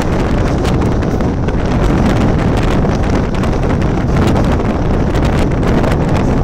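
Wind buffeting the microphone over the steady running noise of a Mumbai suburban EMU train moving along the track.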